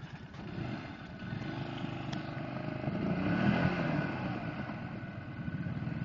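ATV engine revving while the quad is bogged nose-down in deep water, stuck; the revs rise and get louder about halfway through, then ease off.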